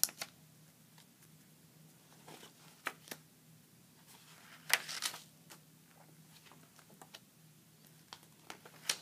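Paper and cardstock pages of a ring-bound junk journal being turned by hand: scattered soft rustles and light clicks, with louder page flips about five seconds in and near the end.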